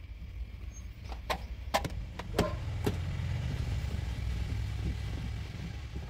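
Tractor diesel engine idling steadily, with a few sharp clicks and knocks between about one and three seconds in.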